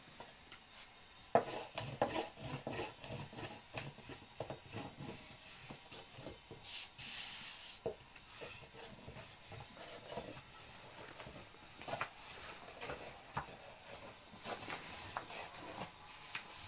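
Irregular knocks, taps and rubbing of things being handled, with a brief hiss about seven seconds in.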